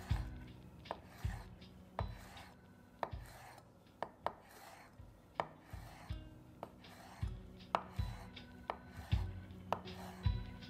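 Chef's knife slicing basil leaves into chiffonade ribbons, the blade knocking sharply on a bamboo cutting board at irregular intervals, roughly once a second.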